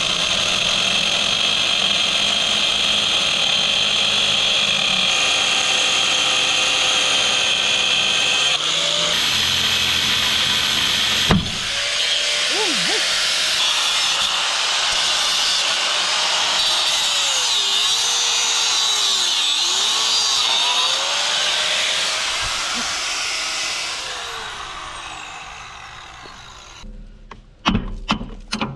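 Corded reciprocating saw cutting through the steel U-bolts that hold an axle to its leaf spring, its motor pitch wandering up and down under load, with one sharp click about eleven seconds in. The saw winds down after about twenty-four seconds, and a few knocks follow near the end.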